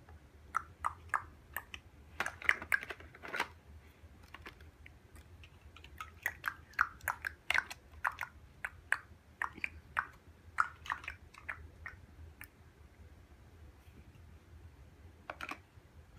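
Large plastic Mega Bloks building blocks clicking and clattering as they are handled and pressed onto a stacked tower, in runs of quick light clicks with short pauses between.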